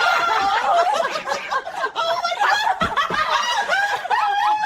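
Several people laughing hard, with high-pitched squeals and chuckles in rising and falling bursts.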